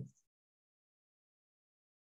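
Near silence: the last of a woman's word fades out just at the start, then dead digital quiet with no room noise.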